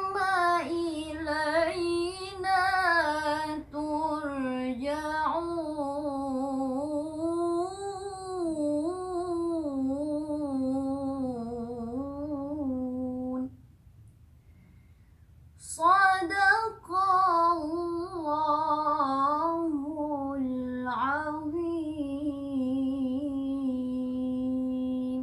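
A young girl's voice reciting the Quran in melodic, drawn-out tilawah style: a long ornamented phrase, a pause for breath about halfway through, then a second phrase that ends on a long, steady held note.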